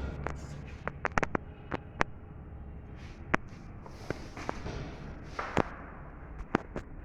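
Irregular sharp clicks and taps, about a dozen, some in quick clusters, over a low steady hum.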